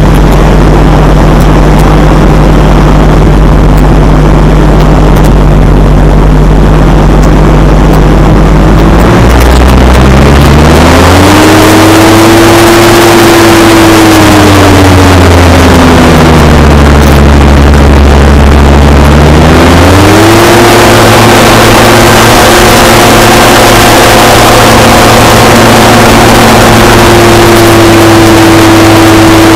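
Hovercraft engine and propulsion drive with its reduction gearbox freshly repaired, loud. It idles steadily for about nine seconds, then revs up, eases off for a few seconds, and revs up again to hold a steady higher speed as the craft moves off.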